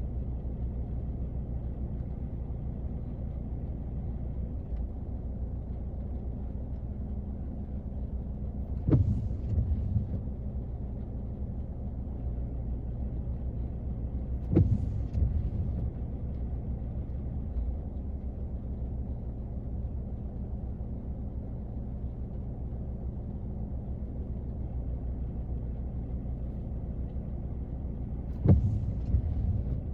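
Rain on a car heard from inside the cabin: a steady, muffled, low wash of sound. Three sudden sharp cracks, each followed by about a second of low rumble, come about nine, fifteen and twenty-eight seconds in.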